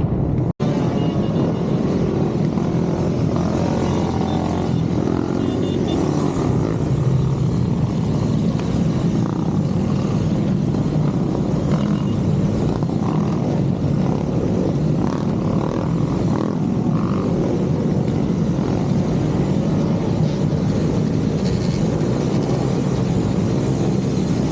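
Motorcycle engine running steadily while riding, picked up by the rider's onboard microphone, with a brief dropout about half a second in.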